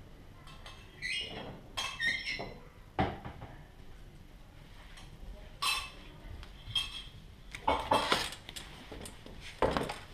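A small toy ball clinking and knocking on a hard concrete floor as a cat fetches it: a scatter of light taps and clinks, some with a brief ring.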